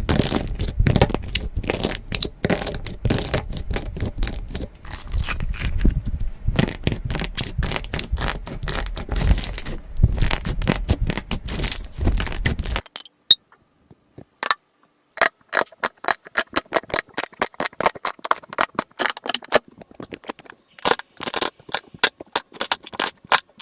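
Slime being squished and poked: dense crackling and clicking with a low rumble, then after a sudden cut about 13 seconds in, sparser, separate clicks and pops.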